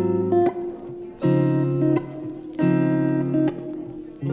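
Background music: a guitar strumming chords, a new chord about every second and a half.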